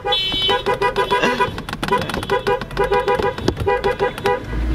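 Chevrolet car horn honked over and over in a quick rhythm of short blasts, heard from inside the cabin.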